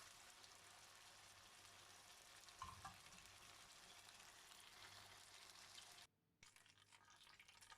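Coated chicken breast pieces frying in hot oil in a karahi: a faint, steady sizzle. There is a brief knock about two and a half seconds in, and the sound cuts out for a moment about six seconds in.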